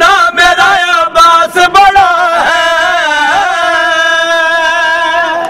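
Male voice chanting the closing line of an Urdu qasida in a wavering, ornamented melody, then holding one long steady note that cuts off abruptly near the end.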